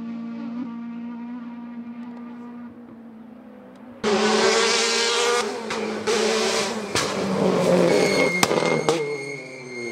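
A rally car's engine fades steadily as it drives away. About four seconds in, the sound jumps to a much louder Peugeot 208 rally car running hard at high revs as it approaches and passes close, with sharp cracks around three and four and a half seconds later. Its pitch drops near the end.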